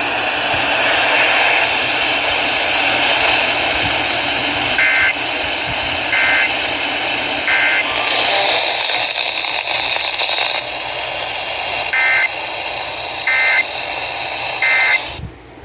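Emergency Alert System broadcast heard over a noisy radio: a steady static hiss, with six short digital data bursts in two groups of three, the three-times-repeated SAME code bursts that frame an EAS alert.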